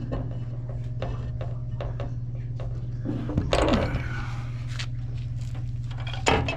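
Channel-lock pliers working a black iron gas pipe: scattered metallic clicks and clatter, a scrape about three and a half seconds in and a sharp knock near the end, over a steady low hum.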